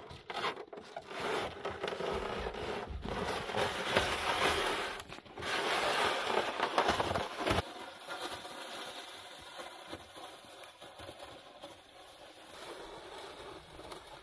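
A plastic sled loaded with firewood dragged over snow: a steady scraping hiss. It cuts off sharply about seven and a half seconds in, and a fainter scraping carries on after.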